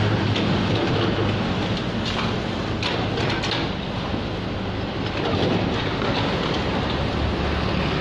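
Komatsu PC78UU excavator's diesel engine running steadily, with clattering and knocking of broken masonry during demolition, most of it about two to three and a half seconds in.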